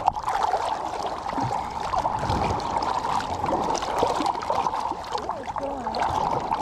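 Shallow seawater splashing and sloshing around a hand-held jack crevalle as it is worked back and forth in the shallows to revive it, with uneven little splashes throughout.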